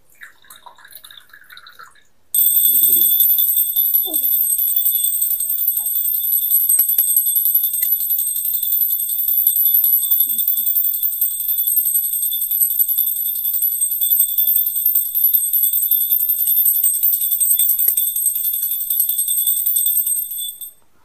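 A puja hand bell rung rapidly and continuously for about 18 seconds as a steady, high ringing that starts abruptly about two seconds in and stops just before the end. Before it, water trickles faintly into a copper cup.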